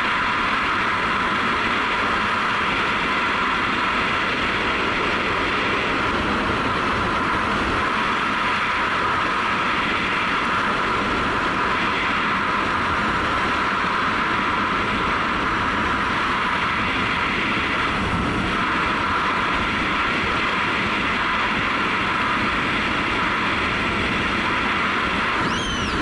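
Steady wind rush over a helmet-mounted camera and road noise at riding speed on a Honda CRF250L, whose single-cylinder engine runs underneath. A short high whistle, falling then holding, sounds near the end.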